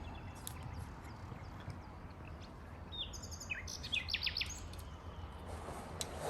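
Small birds chirping, with a quick run of short, high, falling chirps about three to four and a half seconds in, over a steady low background hum.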